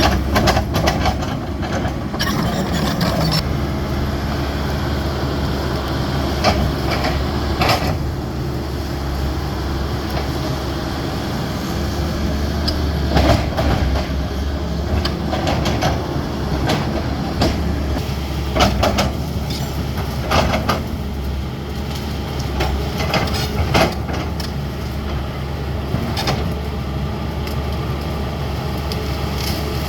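CAT 320D excavator's diesel engine running steadily under work, with scattered short clanks and knocks from the machine as it works.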